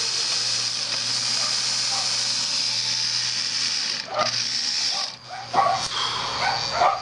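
1944 sewing machine's electric motor running with a steady whir and hum while the needle stays still, not going up and down. The whir falters about four seconds in, and brief voice sounds come near the end.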